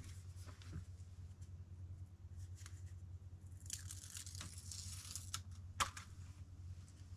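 Sticker backing paper rustling and crinkling as it is handled and peeled, loudest from a little past halfway in, with a few sharp ticks. A steady low hum runs underneath.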